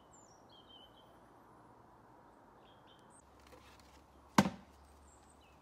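Small birds chirping over a faint steady outdoor background, with a single loud, sharp knock about four and a half seconds in.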